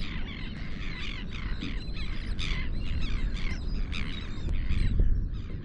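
A flock of seabirds calling: many short, falling, overlapping squawks over a steady low rumble.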